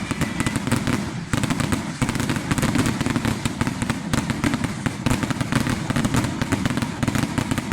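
Firecrackers going off in a rapid, continuous crackle of sharp bangs, with a brief break about a second in.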